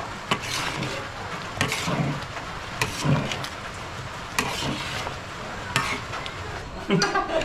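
A metal spoon or spatula stirring and scraping food around a steel wok, with about six scraping strokes roughly a second apart over a light sizzle.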